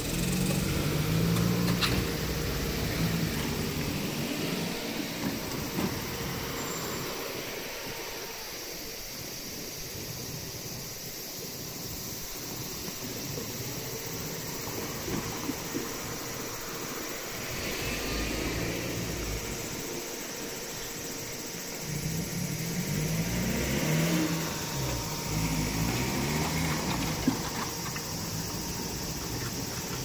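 Road traffic over a level crossing: cars and a light truck drive past, their engines rising in pitch as they pull away. The traffic is loudest near the start and again about two-thirds of the way through, with one sharp knock near the end.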